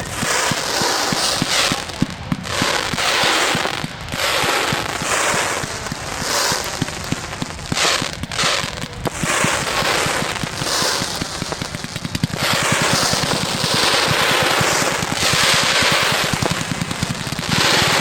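Fireworks show: a rapid, overlapping barrage of aerial shell bursts and crackle, with no let-up.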